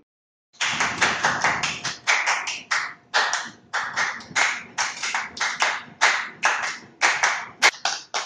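A small group of people clapping their hands in a steady rhythm, about three to four claps a second, starting about half a second in.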